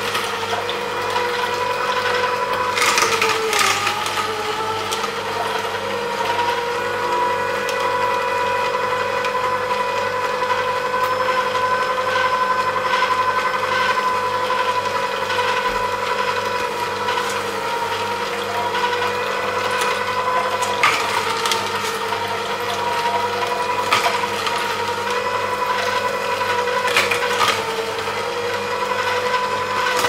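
Vertical slow masticating juicer running steadily, its motor and slow auger humming at a constant pitch as it crushes carrot pieces, with a few sharp cracks along the way.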